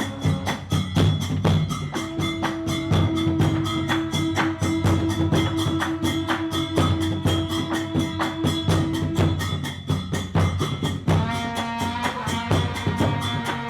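Traditional Khmer ensemble on recreated Angkorian instruments: percussion keeps a fast, even beat under a long held note, and new melodic notes come in near the end.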